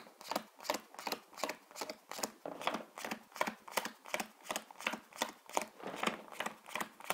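Playing cards dealt one at a time off the deck onto a cloth-covered table, each card landing with a light tick in a steady run of about three to four a second as three piles of nine are built.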